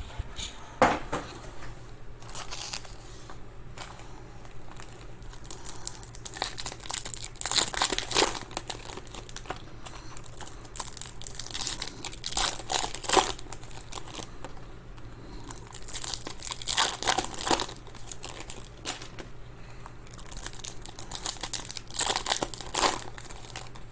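Wrappers of trading-card packs being torn open and crinkled, in separate bursts every few seconds.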